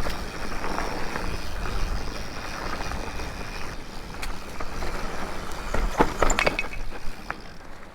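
Mountain bike riding over a dirt singletrack: steady tyre and trail noise with a low rumble, a few sharp clicks and rattles from the bike about six seconds in, getting quieter near the end.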